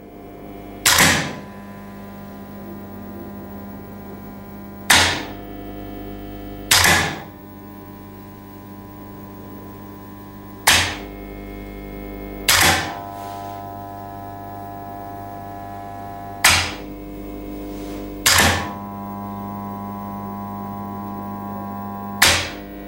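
Electronic sound-design score: a steady electric-hum drone whose chord shifts after each pair of hits, punctuated by sharp snapping hits that come in pairs about two seconds apart, roughly every six seconds.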